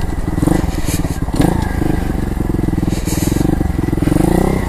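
A 125cc single-cylinder four-stroke pit bike engine revving up and down under throttle while the bike is ridden over a dirt trail. Its pitch climbs near the end.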